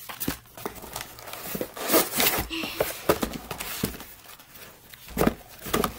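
Paper and cardboard packaging rustling and scraping as it is handled, with irregular short knocks and taps mixed in.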